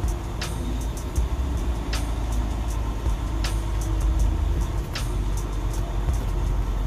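Steady low engine rumble heard inside a truck's cab as it creeps across a parking lot, with a short swish from the windshield wipers about every second and a half.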